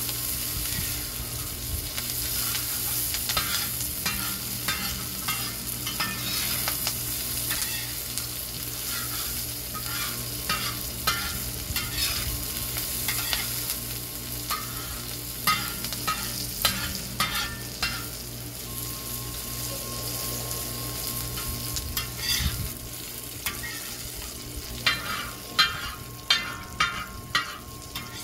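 Diced onions sizzling steadily on a steel discada (plow-disc wok) over a charcoal fire. A long-handled metal spoon scrapes and clinks against the disc as they are stirred, in runs of short strokes, the loudest near the end.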